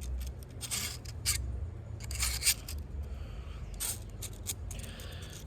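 A fidget toy being worked by hand, making loud, uneven scraping and rubbing strokes with a few sharper ones.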